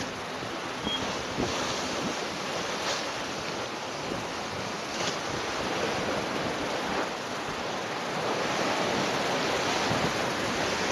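Bow wave rushing and splashing along a Bénéteau sailboat's hull as it surfs downwind under spinnaker in 20–25 knots of wind, with wind buffeting the microphone. The water noise carries a few short splashes and grows louder near the end.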